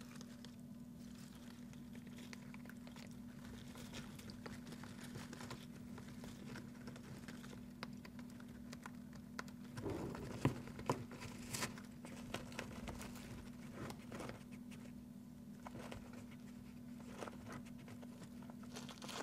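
European hamster digging and rustling among dry grain stalks and soil: scattered scratches and crackles, busiest and loudest about ten to twelve seconds in, over a steady low hum.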